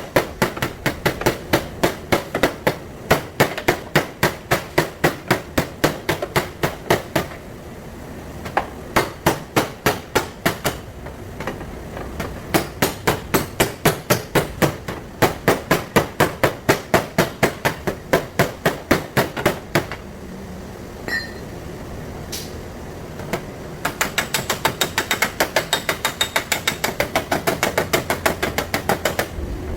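Body hammer beating out a dented car fender panel, rapid metal strikes at about four a second in runs with short pauses. Near the end come quicker, lighter taps that smooth the panel.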